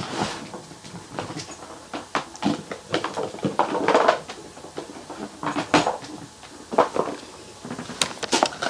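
Irregular clattering and knocking of small objects as someone rummages through a big box of lipsticks and lip glosses, with a busier stretch of rattling about four seconds in.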